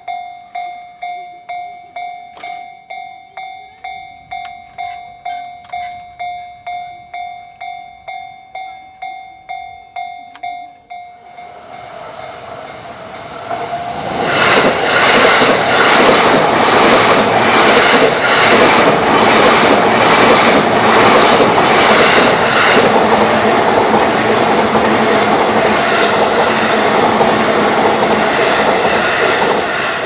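Japanese level-crossing warning bell dinging about twice a second, fading out about eleven seconds in. Then an E233-series electric commuter train comes up and passes close by, its wheels clattering on the rails, loud from about fourteen seconds on.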